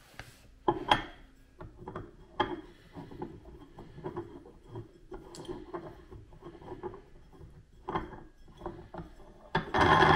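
Light metal clicks, knocks and rubbing from handling an aluminium table-leg mounting plate and fitting it onto the leg's post, with a louder burst of clattering near the end.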